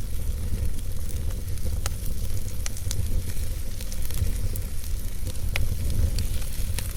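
Wood fire burning in a fireplace: a steady low rumble of flames with scattered sharp crackles and pops from the burning logs, one louder pop about five and a half seconds in.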